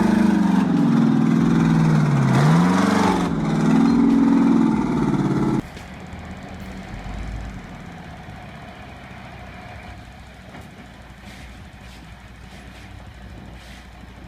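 Heavy truck engine revving up and down several times under load. About five and a half seconds in it cuts abruptly to a quieter, steady engine rumble.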